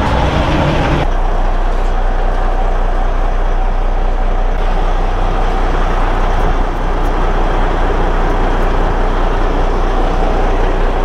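A diesel truck engine idling steadily, a continuous low running noise.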